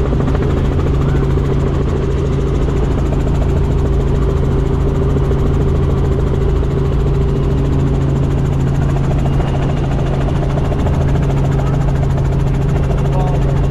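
Small helicopter in flight heard from inside the cabin: the engine and rotor make a loud, steady drone with a constant low hum.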